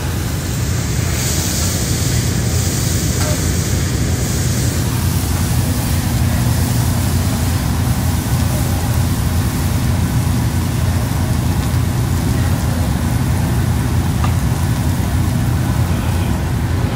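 Steady low rumble of ventilation at a hibachi flat-top griddle, with a high hiss in the first few seconds.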